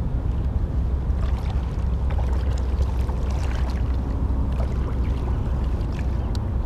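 Low, steady wind rumble on the microphone over water lapping against a float tube, with scattered small ticks and splashes.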